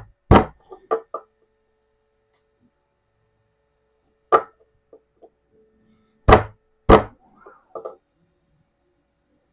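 Irregular sharp knocks, about five loud ones with smaller taps between, as a ball bearing is pressed by hand into a heated 3D-printed plastic wheel spindle.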